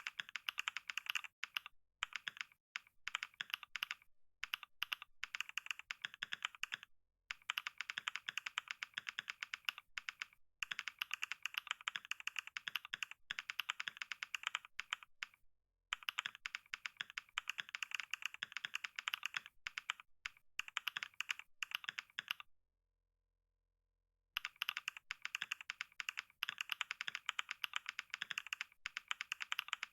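Computer keyboard being typed on at speed for a typing test, a rapid stream of key clicks, with a few brief pauses and one silent break of about two seconds about three quarters of the way through.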